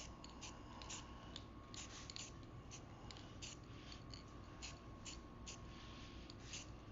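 Krylon aerosol spray-paint can giving short, faint bursts of spray hiss in quick, irregular succession, a few per second, as small parts are painted.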